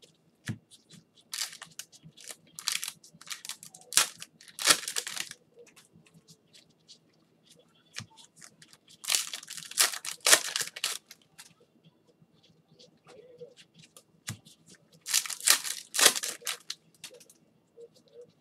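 Clear cellophane trading-card pack wrappers being torn open and crinkled by gloved hands, in three bouts of ripping and crackling a few seconds apart.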